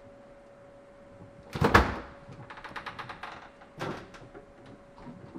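Rummaging in an open refrigerator: a loud knock about a second and a half in, then a run of quick light clicks and rattles, and another knock near four seconds, over a faint steady hum.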